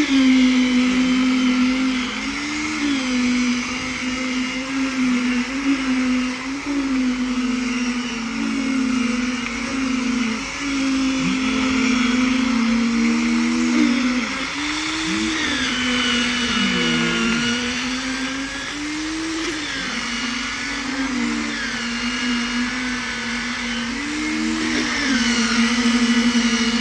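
A motor on concrete-pouring machinery runs with a steady hum, its pitch briefly sagging and recovering every couple of seconds as it takes load.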